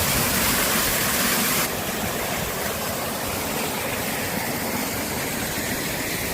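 Waterfall rushing, a steady noisy wash of falling water; it drops a little in level about a second and a half in.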